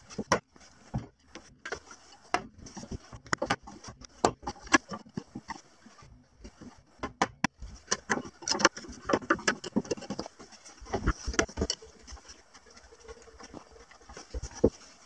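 Narrow chisel pressed and levered by hand into a softwood block to cut a small square hole: irregular sharp cracks and clicks of wood fibres giving way, some in quick runs.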